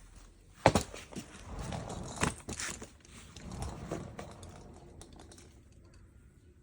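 Irregular clicks and rattling of something being handled. The loudest is a sharp click just under a second in, with another at about two and a quarter seconds, and the clatter fades out after about four seconds.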